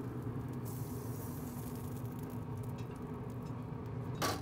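Yoder YS640 pellet grill running with a steady low hum and hiss, with faint ticks and one short sharp clack a little over four seconds in.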